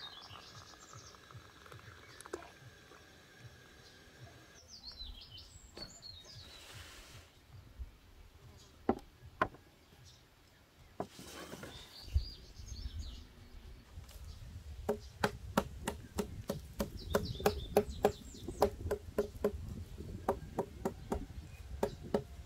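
A cleaver chopping a bundle of dried plant stalks against a wooden block, in a run of quick, regular strokes that begins about two-thirds of the way in. Birds chirp at times.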